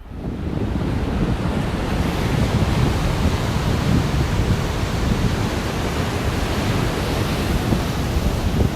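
Sea surf and wind buffeting the microphone: a loud, steady rush of noise that starts abruptly.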